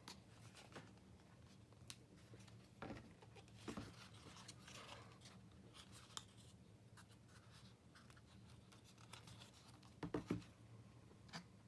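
Faint handling sounds of unpacking a pen: light scrapes and rustles with a few small knocks, a little louder about three, four and ten seconds in.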